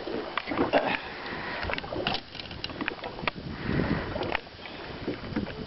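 Irregular knocks, clicks and rustling in a small fishing boat while a fish is being landed, over a low rumble of wind and water.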